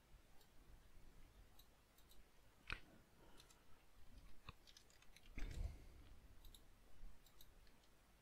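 Faint, scattered clicks of a computer mouse and keyboard, with a sharper click about three seconds in and a soft low thump a couple of seconds later.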